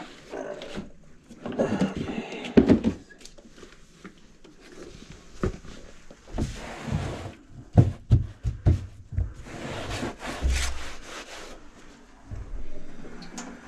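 Irregular knocks, clatters and rubbing from work inside a kitchen sink cabinet: a rag wiping up the cabinet floor and tools and gear being handled.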